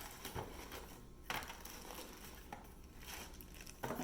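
Packaging being handled during an unboxing: crinkling and rustling, with a few light knocks about a second apart.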